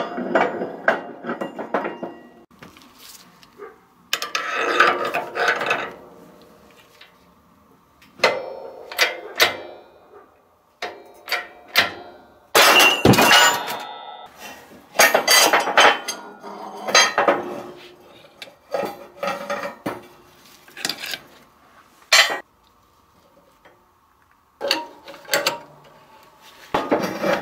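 Steel differential parts and hand tools clanking and clinking against the steel plates of a shop press as a Ford 8.8 differential carrier is handled and a bearing separator is fitted and tightened with a wrench. Irregular clusters of sharp metal knocks and rattles, with a short pause late on.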